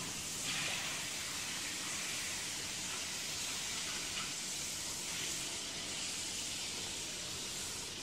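Steady hiss of background noise, strongest in the upper range, with no distinct machine tone or rhythm.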